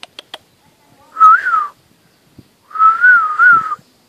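A person whistling a short, warbling call twice, the pitch wavering up and down, after a few sharp clicks at the start.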